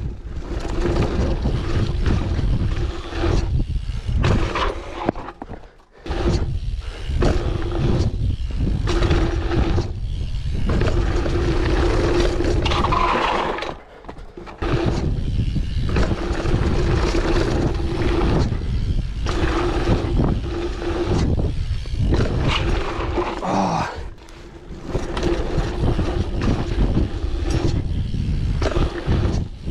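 Octane One Void hardtail dirt jump bike ridden fast down a dirt jump line: tyres rumbling on packed dirt and wind buffeting the mic, with a faint steady hum that comes and goes. The noise drops out briefly about six seconds in and again around fourteen seconds, when the wheels leave the ground over jumps.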